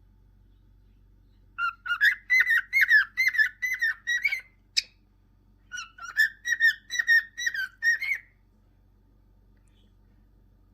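Cockatiel whistling two quick phrases of short, repeated notes, with a single sharp chirp between them.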